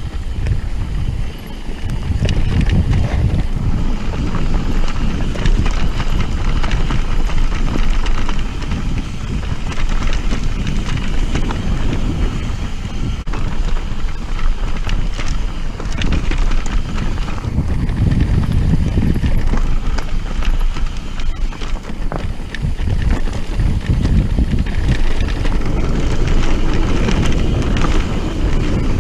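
Mountain bike riding fast down a rough dirt singletrack: wind buffeting the microphone in a heavy rumble that swells and fades, with the tyres crunching over the ground and the bike rattling and knocking on the bumps.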